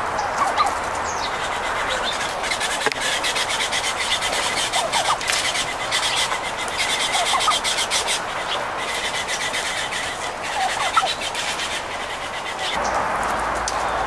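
Birds calling outdoors: a few short rising chirps scattered through, over a steady background hiss. A fast buzzing rattle runs from about three seconds in until about nine seconds in.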